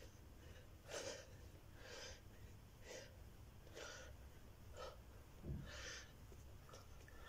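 A man's faint, sharp breaths while doing push-ups, one breath about every second in time with the reps.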